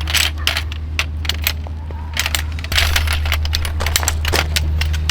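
Camping gear being handled: an irregular run of small clicks and clinks over a steady low hum.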